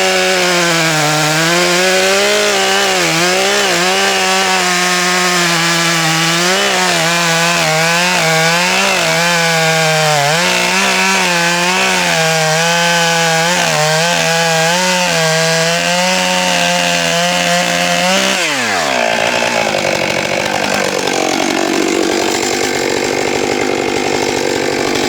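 Stihl 661 Magnum two-stroke chainsaw cutting through a large oak log at high revs, its pitch dipping and recovering as it loads up in the cut. About eighteen seconds in, the revs fall sharply and it keeps running at a lower, rougher pitch.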